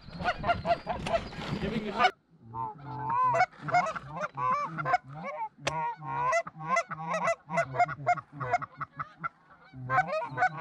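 Canada geese honking and clucking: many short calls in quick succession, with a break about two seconds in.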